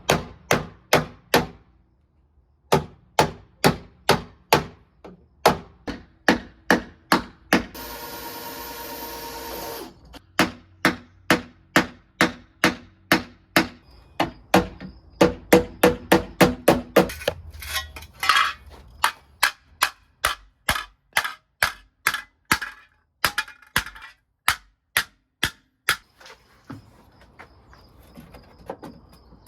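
Hammer blows on the truck's thick steel body panel, about two a second, bending the metal back into shape. About 8 seconds in, a steady noise lasts some two seconds between the blows.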